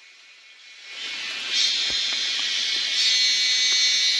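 Cicadas buzzing in a steady, high-pitched chorus that fades in about a second in and grows louder twice, near the middle and again about three seconds in.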